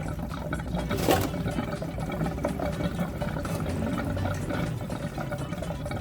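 Pot of water with red ginger heating on a stove, a steady hiss of liquid coming up toward the boil, with one sharp clink about a second in.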